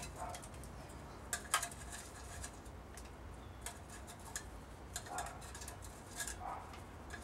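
Faint, scattered light clicks and ticks as a steel can is turned with metal tongs on a charcoal grill, over a low steady rumble.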